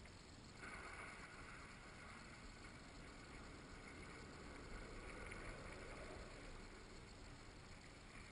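Near silence: a faint outdoor background with a faint high hum that comes in about half a second in.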